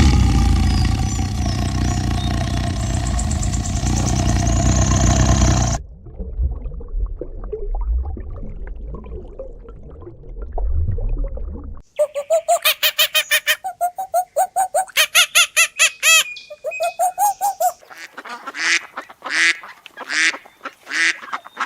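Waterfowl honking and quacking in quick repeated calls through the second half. Before them come a loud, sustained call with steady tones lasting about six seconds and a stretch of low rumbling.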